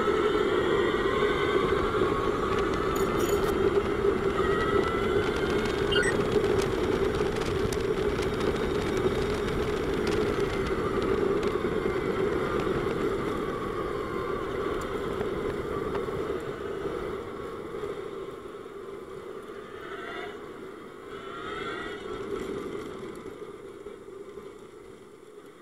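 On-board sound of a DevBot electric race car at speed: the electric drivetrain's whine rises and falls as the car accelerates and brakes through the corners, over a steady tyre and road rumble. It gets quieter over the last several seconds.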